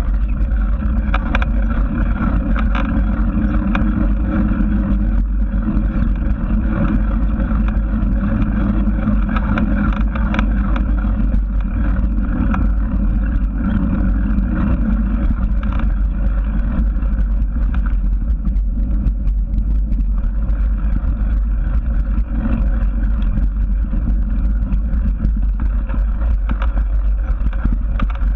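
Steady wind rumble buffeting the microphone of a moving action camera, with faint ticking and rattling mixed in.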